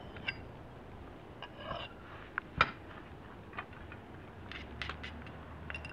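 Scattered light clicks and short scrapes of a steel hatchet head and a sharpening rock being handled, with one sharp click about two and a half seconds in and a run of quick light ticks near the end.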